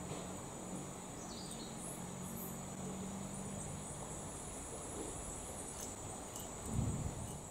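Tropical forest insects chirring: a steady high-pitched drone with a pulsing high trill over it. A low hum sits beneath for the first few seconds, and a brief low bump comes near the end.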